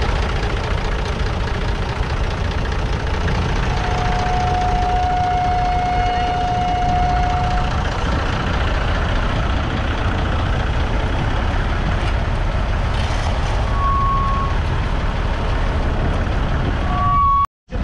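1963 Massey Ferguson 35X's 2.5-litre three-cylinder diesel engine running steadily under load while pulling a two-furrow mounted plough. A thin steady whistle-like tone is held for about four seconds, starting about four seconds in. The sound cuts out briefly near the end.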